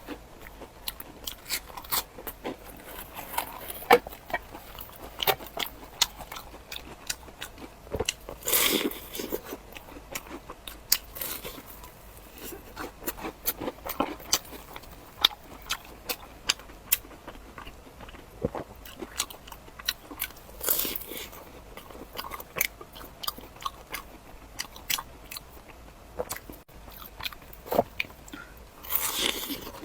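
Close-miked eating: bites and crunchy chewing of crisp food, with many small sharp crunches and a few longer, louder crunching bites about a third of the way in, about two-thirds in, and near the end.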